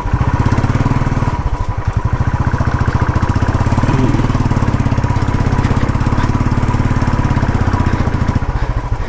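Motorcycle engine running steadily with a fast, even exhaust beat, with a faint steady whine above it.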